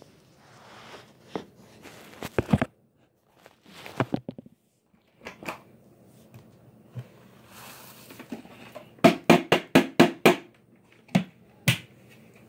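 Irregular knocks and clatter of objects being handled, with a quick run of about seven sharp knocks about three-quarters of the way through; no vacuum motor is running.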